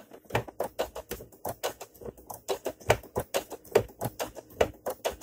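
Domestic sewing machine stitching steadily, its needle mechanism giving an even run of clicks, about six a second, as it sews a quilt binding down by machine.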